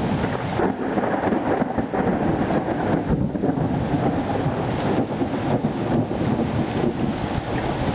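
Thunderstorm: steady rain with a continuous, fluctuating low rumble of thunder.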